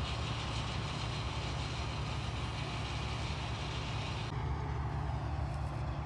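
Combine harvester running steadily in a wheat field, a continuous low engine rumble with no distinct strokes.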